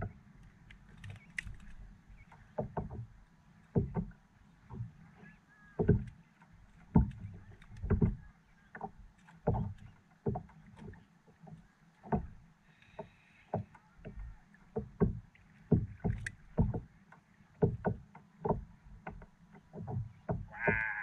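Water slapping and knocking against a small boat's hull as it moves, with irregular low thumps about once a second.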